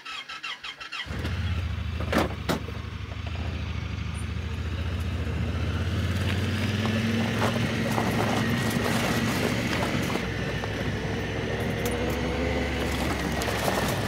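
A motor vehicle's engine starts about a second in, after a few clicks, and then runs steadily as the vehicle is driven across the pasture.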